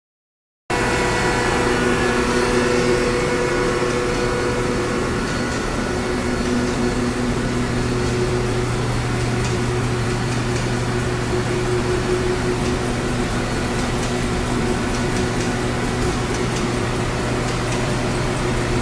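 After a moment of dead silence, a 1987 Mazak M5 CNC lathe running, a steady machine hum with several constant tones over a wash of noise.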